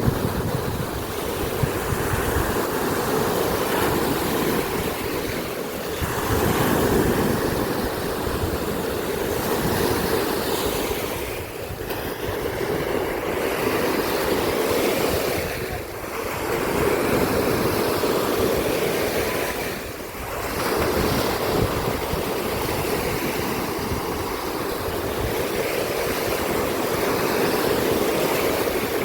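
Black Sea surf washing onto the shore, swelling and easing every few seconds, with wind buffeting the microphone.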